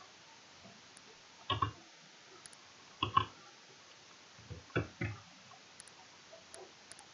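Computer keyboard keystrokes: three short clusters of clicks about a second and a half apart.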